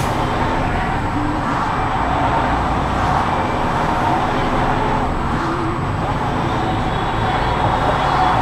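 Motorcycle running at a crawl in stop-and-go highway traffic, its engine and the surrounding traffic making a steady noise.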